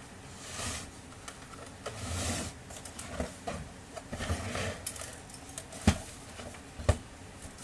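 Hands working at a laser printer's plastic casing: a few short scraping and rustling sounds, then two sharp snaps about a second apart.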